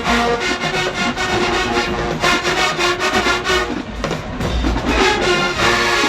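Marching band playing: brass over a steady drum beat.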